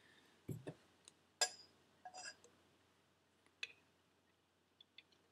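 A few faint knocks and metallic clinks of small turbo parts and a pump oil can being handled on a workbench, the loudest clink, about a second and a half in, ringing briefly.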